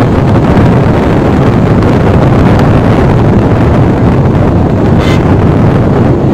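Wind buffeting the microphone: a loud, steady rushing roar with no breaks.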